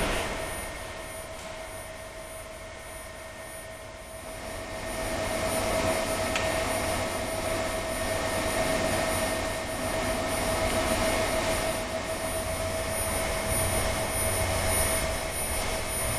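Steady whir of a water-cooled direct-drive servo motor turning a steel roll on a test rig, with a constant whine over it. The sound grows louder about four to five seconds in and then holds steady.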